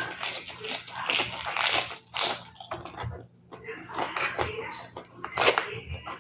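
Close-miked biting and chewing of crunchy fresh lettuce, with a run of irregular wet crunches and crackles.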